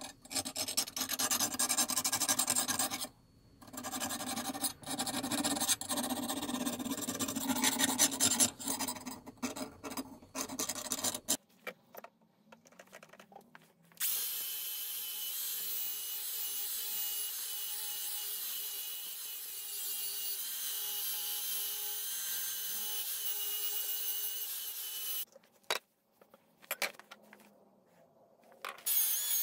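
Rough scraping and rasping of a tool working a steel blade, in uneven stretches with short pauses. After a quiet break this gives way to a steady hiss that stops near the end, followed by a few clicks.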